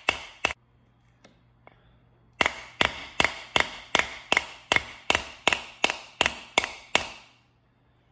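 The spine of a large kitchen knife striking a whole coconut's hard shell, sharp ringing knocks about two and a half a second: two at the start, a pause of about two seconds, then a run of about a dozen more that stops about seven seconds in. Tapping with the blunt back of the blade to crack the shell open.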